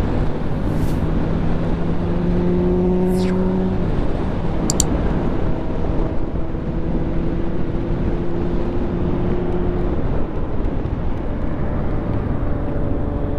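Yamaha Lander 250 single-cylinder motorcycle engine running on the road, under a heavy, steady rush of wind noise; its pitch creeps slowly upward for several seconds after about four seconds in.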